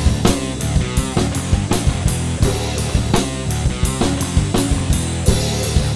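Acoustic drum kit played with sticks in a fast rock groove, kick, snare, toms and cymbals struck many times a second, over a rock backing track with bass and guitar: a Trinity Grade 6 drum exam piece.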